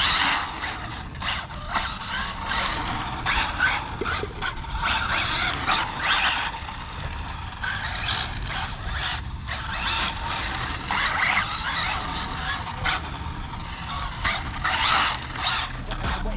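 Tyres of an 8S Arrma Infraction V2 1/7-scale RC car squealing and scrubbing in many short surges as it spins donuts.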